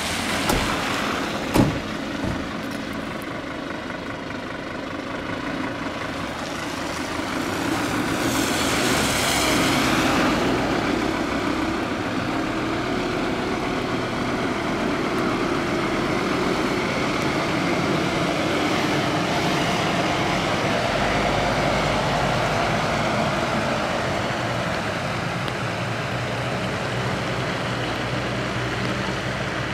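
Scania fire engine's diesel engine running as the truck pulls out and drives away, with no siren. A couple of sharp clicks come near the start, and a loud hiss about eight seconds in.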